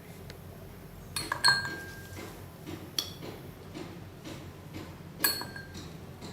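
Stainless-steel spoon clinking against a container while yellow beeswax is scooped out for weighing: a handful of sharp clinks with brief ringing, the loudest about one and a half seconds in and another near the end.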